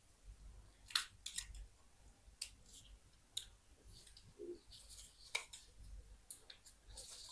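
Quiet, irregular sharp clicks and snaps, about a dozen, from small plastic and metal parts and tools being handled as an old ZTE phone is taken apart.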